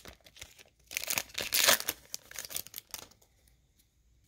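Foil wrapper of a Pokémon XY Evolutions booster pack crinkling and tearing as it is opened and pulled off the cards, loudest about a second and a half in. The rustling stops about three seconds in.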